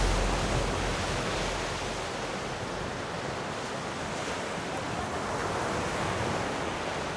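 Steady wash of ocean surf, with the low end of a music track fading out in the first couple of seconds.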